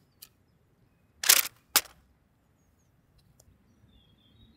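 3D-printed PLA leaf-spring catapults firing: two sharp plastic snaps about half a second apart, a little over a second in.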